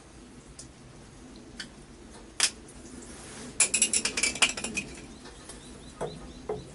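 Small metal plumbing fittings handled by hand: a few sharp clicks, then a quick run of ringing metallic clinks, and two duller knocks near the end as a fitting is set onto a brass valve.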